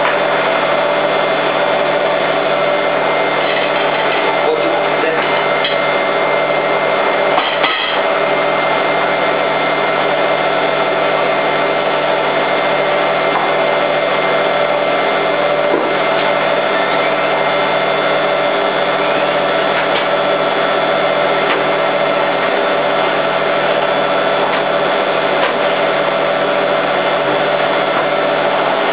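Hoover H130E washing machine spinning, its motor and drum giving a steady loud whine with several held tones, and a brief knock about seven and a half seconds in.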